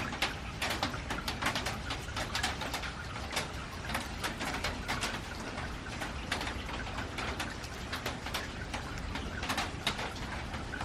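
Steady rain on a metal roof, with irregular sharp taps of drops and drips striking the metal.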